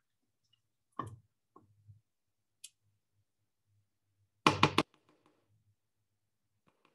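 A wooden spoon knocking against a bowl while yogurt is scraped out: a single knock about a second in, then a quick run of three or four louder knocks about halfway through.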